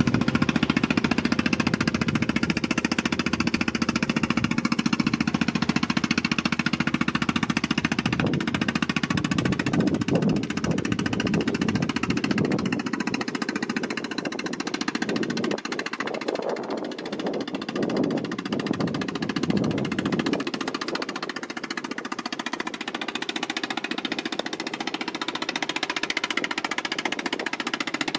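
Fishing boat's engine running steadily with a fast, even chug. The deepest part of the sound fades about twenty seconds in.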